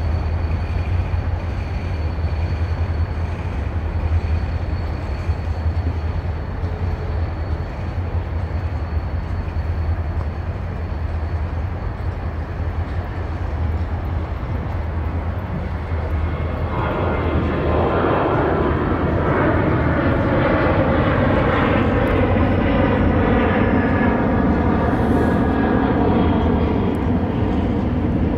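Freight train rolling by with a steady low rumble; about halfway through, a twin-engine jet airliner's takeoff roar rises over it and becomes the loudest sound, with a whining engine tone in it.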